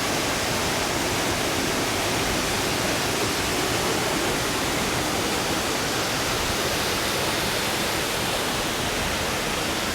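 Steady, even rush of the Düden waterfall's water pouring down.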